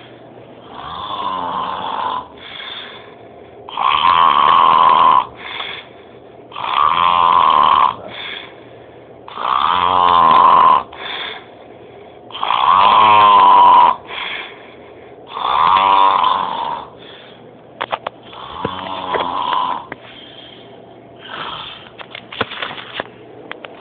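Loud snoring, like a monster: a snore about every three seconds, eight in all, the first and last ones weaker.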